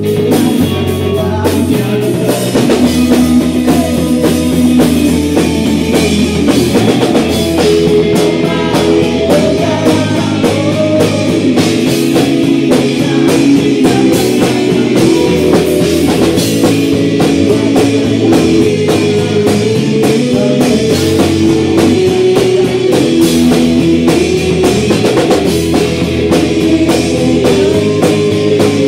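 Live rock band playing: distorted electric guitar, bass guitar and a drum kit, with a singer's voice over them.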